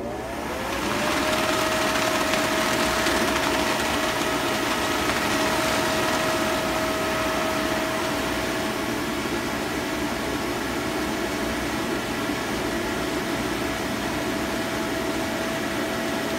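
Bounce-house blower fan spinning up to speed over the first second, then running loud and steady with a rush of air and a steady whine, inflating a Christmas inflatable.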